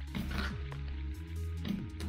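Background electronic music with held bass notes and short falling sweeps.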